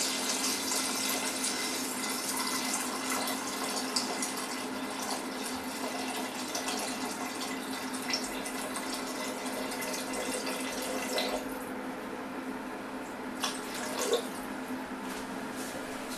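Water being poured slowly into the EveryCook cooker's pot, a steady splashing pour that stops about eleven and a half seconds in, followed by a few light knocks. A faint steady hum runs underneath.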